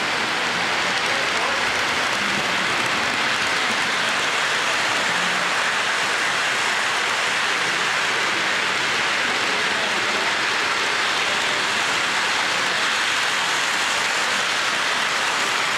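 O gauge model trains rolling on three-rail track with plastic roadbed: a steady rushing rattle of wheels and motors that does not let up.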